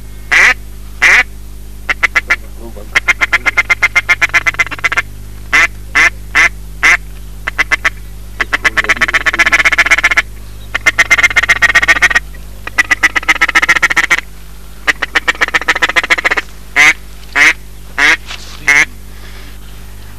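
Duck call being blown to lure ducks: loud single quacks, then rapid runs of short chuckling quacks in the middle, then single quacks again near the end.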